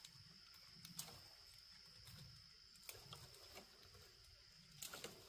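Near silence: faint rustles and small clicks of twigs and leaves as ripe berries are picked by hand from tree branches, the clearest click about a second in and a few more near the end, over a faint steady high-pitched tone.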